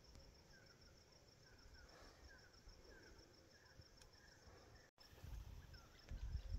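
Insects chirping faintly in a steady, evenly pulsed rhythm, with scattered short chirps lower down from another creature. A few low rustles and knocks come near the end.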